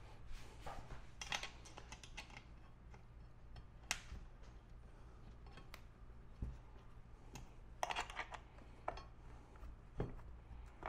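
Faint, scattered clicks and scrapes of bolts and tools being handled on an aluminum kayak pedal-drive mount, with a sharp click about four seconds in, a quick cluster near eight seconds and a knock near the end, over a faint low hum.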